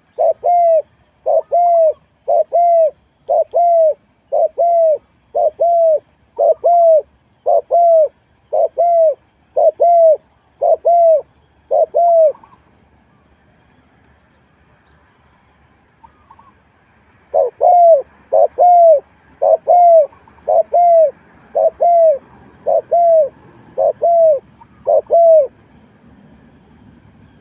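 A spotted dove cooing in a long, even series of short arched coos, about one and a half a second. The series breaks off for several seconds, then a second run of about eleven coos follows.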